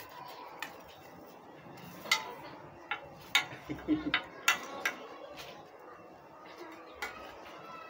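Metal spoon clinking and scraping on a glass tabletop, a scattered series of about ten short, sharp clicks as it scoops at paper banknotes.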